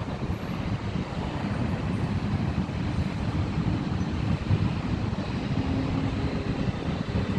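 Steady low rumble of distant jet airliner engines at an airport, with no single aircraft passing close.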